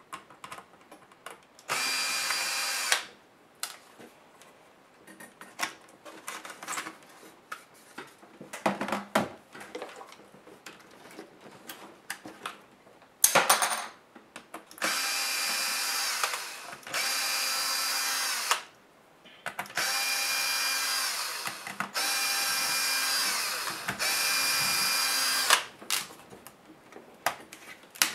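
Cordless electric screwdriver backing screws out of a laptop, in six short runs of a steady motor whine, each one to two seconds long. The pitch drops as each run stops. Small clicks and rattles of screws and parts being handled come in between.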